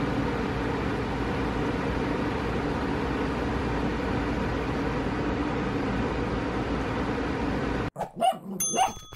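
A steady background hum and hiss that cuts off sharply about eight seconds in. A few short dog barks follow, along with a ringing chime.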